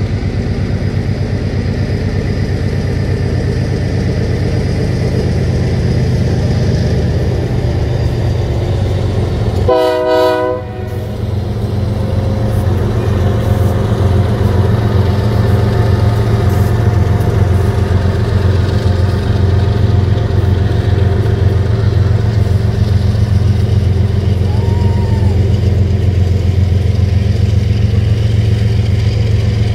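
Union Pacific freight train passing close by. About ten seconds in, the locomotive's horn gives one short blast. Then the diesel locomotives and a string of covered hopper cars roll past with a steady low rumble and the clatter of wheels on rail.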